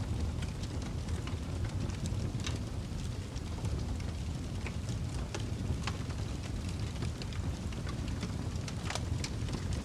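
Wood fire burning in a fireplace: a steady low roar of flames with frequent small crackles and pops, a few of them sharper than the rest.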